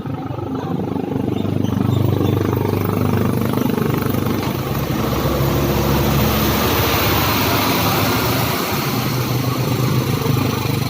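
A motor-engine running steadily, building up over the first two seconds and then holding with a low, slightly wavering hum.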